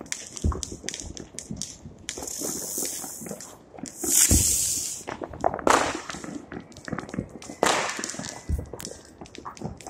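Fireworks and firecrackers going off: scattered pops and bangs, with two longer hisses around two and four seconds in. The loudest bang comes about four seconds in.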